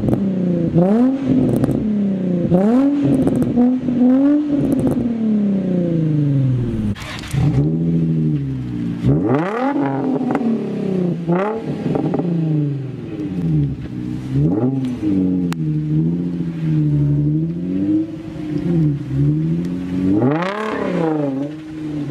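Infiniti G35 coupe's 3.5-litre VQ V6 being revved through its exhaust: a run of quick throttle blips for the first few seconds, then several longer revs that climb and fall back, one of the biggest near the end.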